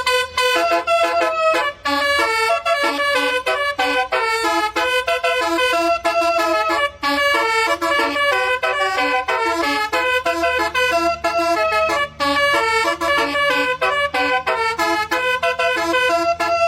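Telolet multi-tone bus horn playing a fast melody of short, changing notes, over a steady low hum.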